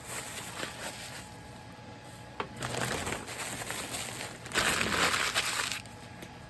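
Packing material being crinkled and pulled away while a tool is unwrapped from its box, in two bouts of rustling, the second one louder and longer.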